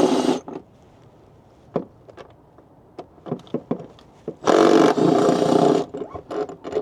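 Power tool spinning 10 mm valve cover bolts out of a Detroit Series 60 engine, in two bursts: one cutting off just after the start and one of about a second and a half, about four and a half seconds in. Small metallic clicks and clinks come in between.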